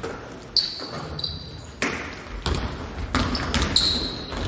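A basketball bouncing several times on a hardwood gym floor, with short high squeaks from sneakers on the court.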